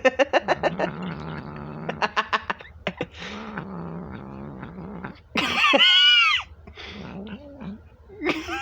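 Domestic cat growling low while eating, with quick chewing clicks, and one loud drawn-out yowl for about a second past the middle. These are the odd noises this cat makes whenever it is fed.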